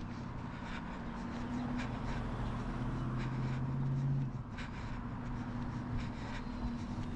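A jogger's footfalls and breathing, heard at short irregular intervals, over a steady low hum of nearby vehicle engines that drops off sharply about four seconds in.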